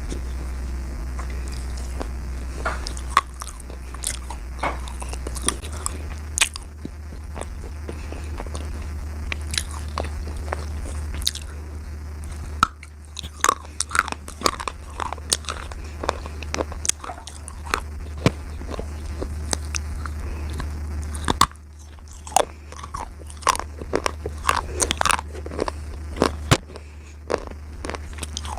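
Slate being bitten and chewed: sharp, irregular crunches, coming thicker and faster after about 13 seconds and again after about 22 seconds, over a steady low hum.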